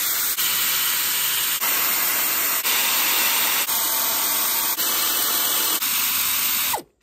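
Air ratchet running as the intake plenum bolts are backed out: a really loud, steady hiss with faint ticks about once a second, which cuts off abruptly near the end.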